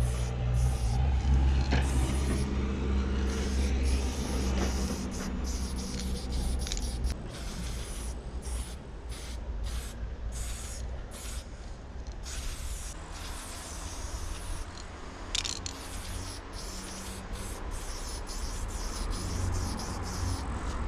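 Aerosol spray-paint can hissing in repeated bursts against a brick wall, broken by many brief pauses between strokes. A low droning hum sits underneath, louder in the first several seconds and again near the end.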